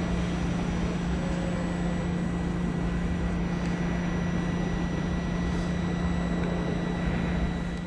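Trenitalia Jazz electric multiple unit moving slowly through the station: a steady low electric hum with a thin, constant high whine from its electrical equipment.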